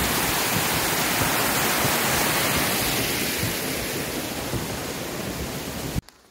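Small mountain stream cascading down over rocks like a little waterfall, a steady rushing of water swollen by heavy recent rain. It eases a little after about three seconds and cuts off suddenly near the end.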